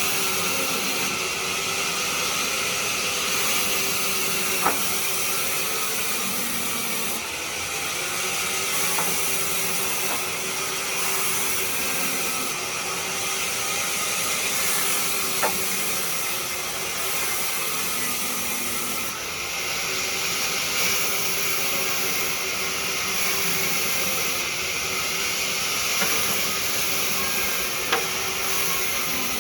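Wood lathe running while a cutting tool works the spinning wood: a steady hiss with a faint hum underneath, broken by a few sharp clicks.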